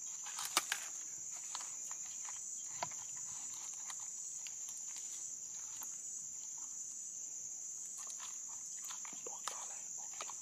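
Insects chirring in a steady, unbroken high-pitched drone. A few light clicks and taps cut through it, the loudest about half a second in, from hands handling the fish on a plate.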